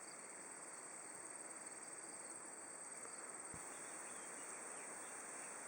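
Faint, steady high-pitched chirring of crickets over low hiss, with a single faint low knock about three and a half seconds in.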